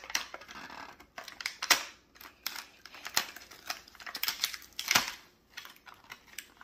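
Plastic blister packaging of a toy crinkling and crackling as it is handled and pried open by hand, with irregular snaps; the sharpest crack comes about five seconds in.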